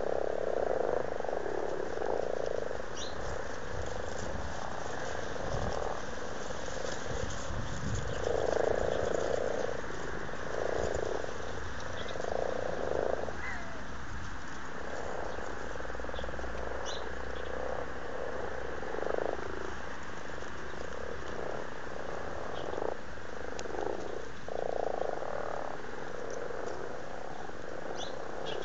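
Common frogs calling in a breeding chorus: males giving low croaks of about half a second to a second each, repeated irregularly, over a steady background of more croaking from the rest of the pond.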